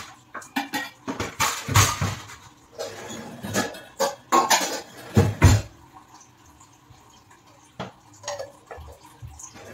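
Steel bowls, plates and plastic containers clattering and clinking as they are stacked into a pull-out kitchen drawer rack. The knocks come thick and fast for the first six seconds, then only a few scattered ones.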